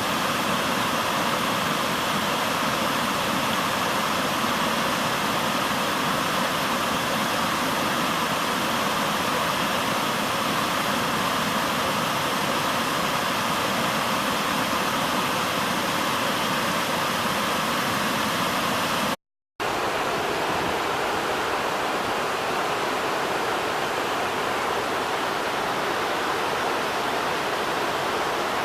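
Waterfall rushing: a loud, steady wash of falling water. About two-thirds of the way through it cuts out for a split second and comes back with a slightly different tone.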